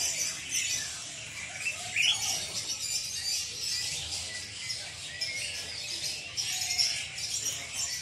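Many caged songbirds chirping and calling together in a dense, continuous chatter of short high notes. One louder rising whistle comes about two seconds in.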